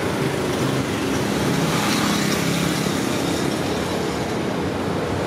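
Steady engine rumble with a low, even hum under a continuous traffic-like noise, with no separate knocks or horn.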